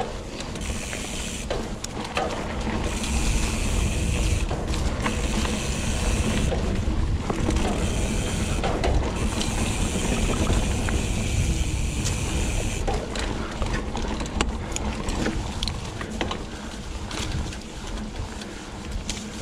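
Mountain bike ride heard from the bike: the Hope Pro 4 rear hub's freewheel buzzes high whenever the rider coasts, in stretches broken off when pedalling resumes. Under it the tyres rumble over the dirt trail, with frequent clicks and rattles from the bike.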